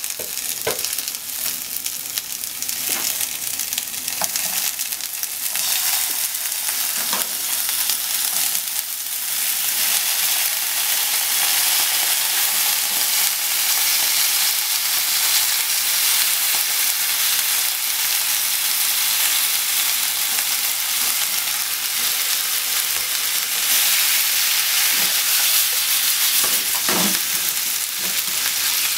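Okra sizzling in oil in a nonstick frying pan, with a few light clicks of chopsticks against the pan. About ten seconds in the sizzle grows louder and fuller as pork and sliced onion in a dark sauce go in, and it keeps going as the stir-fry is stirred.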